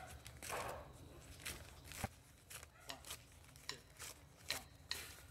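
Sheets of newspaper rustling and crackling in short, irregular crackles as they are unfolded and pulled apart by hand.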